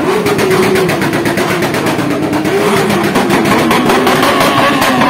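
Motorcycle engines running loud at high revs, the pitch wavering up and down as the throttle is worked, with a second, higher engine note joining about three and a half seconds in.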